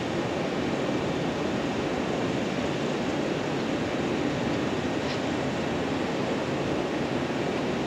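JR West 115-series electric train approaching from a distance: a steady, even rumble with no distinct clanks, horn or brake squeal.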